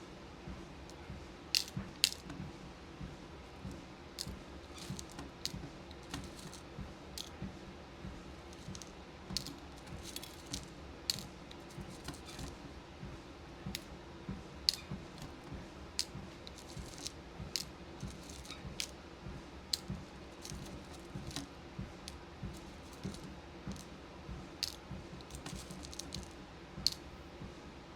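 Small beads clicking and rattling as they are handled and sorted, in irregular light clicks every second or so, a few sharper ones standing out. A steady low rumble runs underneath, from the walking pad treadmill.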